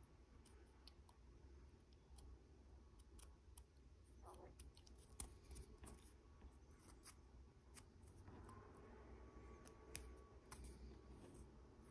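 Faint scattered scrapes and ticks of a hobby knife blade shaving flash off the edges of a small plastic model tank track part.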